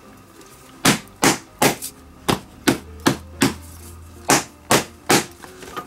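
Leather catcher's mitt being struck in the pocket: about ten sharp smacks, roughly three a second, with a short pause partway through.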